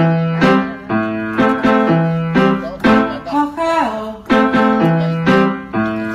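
Background music: a keyboard tune with notes struck about twice a second over a repeating bass line.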